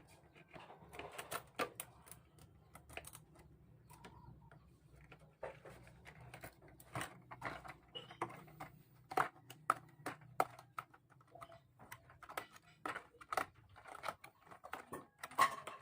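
Irregular light clicks and taps of a hooked fishing lure being handled and fitted into its box.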